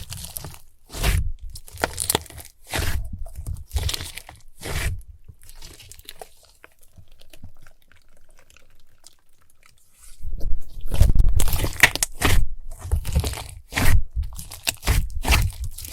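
Crunchy slime crackling in a run of short crunches, about one a second at first. It goes quieter for a few seconds in the middle, then comes denser and louder from about ten seconds in.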